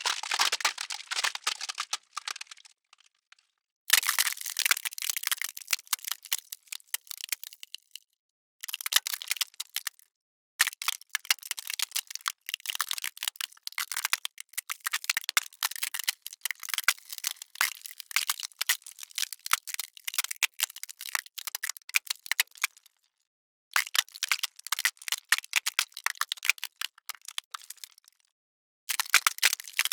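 Ice cracking: dense runs of sharp crackles and snaps in several bursts, each broken off by a short silence.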